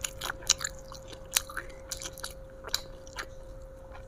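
A person chewing food close to the microphone, with sharp wet mouth clicks every half second or so.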